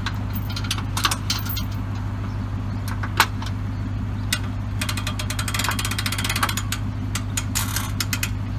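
Pickup truck engine idling steadily at the ramp, with a boat trailer's hand winch being worked: scattered metal clicks and knocks, and rapid runs of ratchet clicking about five seconds in and again near the end as the strap is cranked tight.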